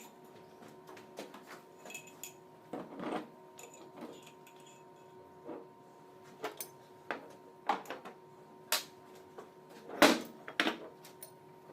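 Metal parts and tools being handled during starter motor repair: irregular clinks and knocks, the loudest about ten seconds in, over a faint steady hum.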